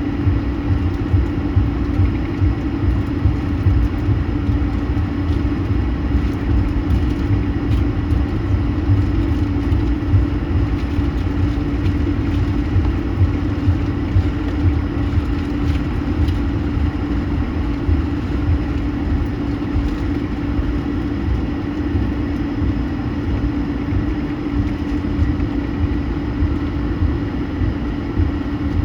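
Airbus A220's Pratt & Whitney PW1500G geared turbofan engines heard from inside the cabin: a steady hum over a heavy low rumble that holds even throughout.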